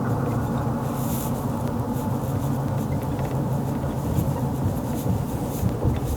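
Steady engine and road rumble heard inside a car's cabin while driving.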